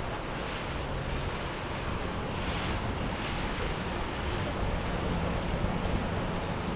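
Waves washing and wind buffeting the microphone, with a faint low drone of boat engines underneath.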